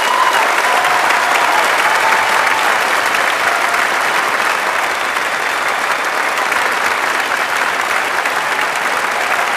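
Audience applauding, a loud, steady clapping from a full hall.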